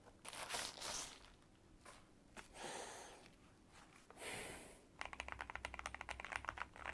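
A few soft swishes of handling, then, about five seconds in, fast typing on an AVAX GM03 Pro mechanical keyboard with its factory brown switches: a quick, even run of light key clacks.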